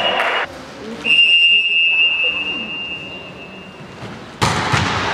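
Referee's whistle blown in one long, steady blast that starts about a second in and fades over about three seconds. Near the end, court noise of voices and thuds starts abruptly.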